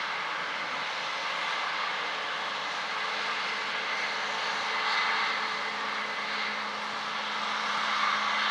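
Harvest machinery engine running steadily, a continuous drone with a steady hum.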